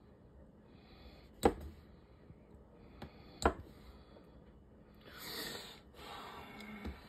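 Two sharp metallic clicks, about two seconds apart, as small brass refrigerant hose adapters and a steel pick-style gasket removal tool are handled and set down on a wooden table. Near the end comes a soft, breathy rush of noise lasting a couple of seconds.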